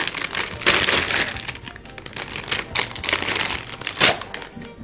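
Shiny foil toy blind bag crinkling as it is torn open and a toy dinosaur is pulled out: a series of sharp rustles, the loudest about a second in and again about four seconds in.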